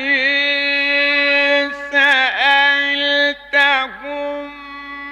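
A male Quran reciter chanting in the melodic style, holding long steady notes. The phrases break twice, and his voice swoops down in an ornamental dip around two and four seconds in. The last note is held more softly.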